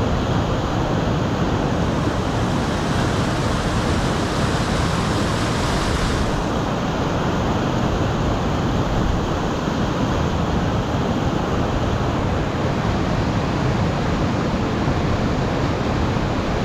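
Mountain river rapids rushing over boulders and small cascades: a steady, loud rush of white water, its highest hiss easing slightly about six seconds in.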